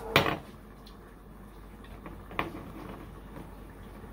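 A bottle of sauce is set down with a short, sharp knock just after the start, followed by a fainter knock about two and a half seconds in, over quiet room tone.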